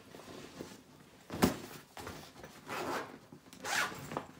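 Items being handled: rubbing and rasping of fabric and packaging in several short bursts, with a sharp knock about a second and a half in as something is set down.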